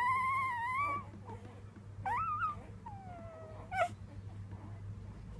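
Three-day-old Weimaraner puppy whining in its sleep in a high, sing-song voice: a long rising whine that stops about a second in, then a short squeak, a slow falling whine and a brief yelp.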